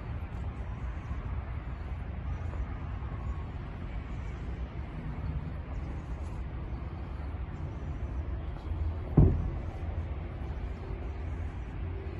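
Outdoor ambience: a steady low rumble, with one sharp thump about nine seconds in.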